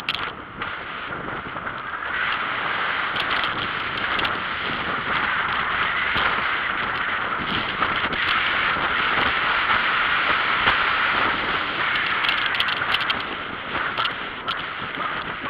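Steady rushing noise of a bicycle in motion: wind across the microphone and tyres rolling on asphalt, with scattered small clicks and rattles.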